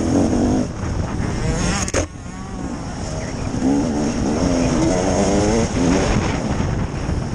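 KTM EXC 300 two-stroke enduro motorcycle engine revving up and down under riding. The revs climb just before two seconds in and cut off with a sharp click, then rise and fall again through the rest.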